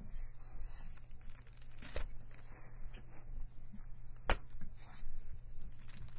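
Two sharp clicks about two seconds apart, over a low steady hum and faint rustling.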